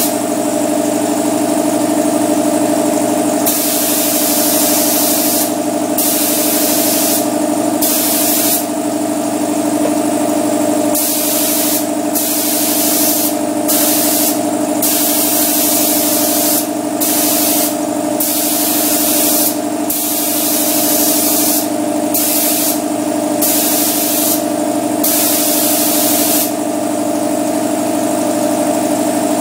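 Paint spray gun spraying primer in repeated trigger pulls, hissing on and off in short passes of about one to three seconds, over a steady mechanical hum.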